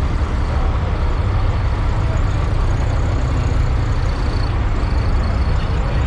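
Steady low rumble of semi trucks' diesel engines idling, with no change in pitch.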